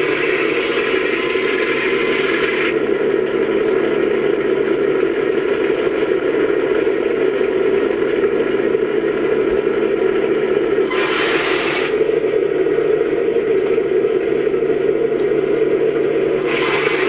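Simulated tank engine sound from an RC Heng Long Panther's speaker: a $12 sound card playing a recorded Panther Maybach engine, merged with the stock RX-18 sound unit's engine sounds, running steadily and loud. Brief hissing bursts come in during the first couple of seconds, again about eleven seconds in, and right at the end.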